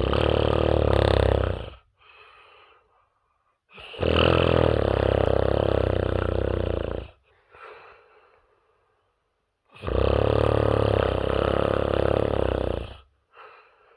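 A person snoring heavily: three long, loud snores of about three seconds each, with a much quieter breath after each one.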